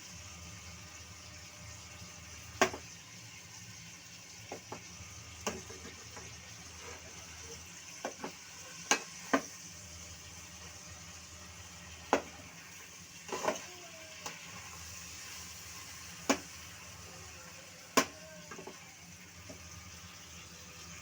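Chicken frying in a pan, sizzling steadily, with a utensil knocking sharply against the pan about eight times at irregular intervals as it is stirred.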